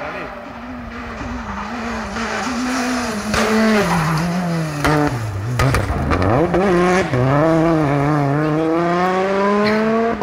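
Rally car engine coming closer at high revs, dropping in pitch as it slows around a corner, with a few sharp bangs, then accelerating hard with a long steady rise in revs as it drives away. Tyres scrabble on the loose road surface.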